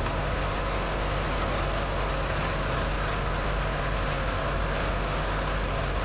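Truck engine sound effect running steadily: a low, even drone under a wide rushing noise.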